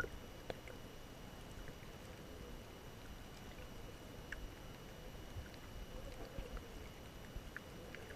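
Underwater ambience heard from just below the surface: a faint, muffled low hiss of moving water with scattered faint clicks and ticks, and one sharper click at the very start.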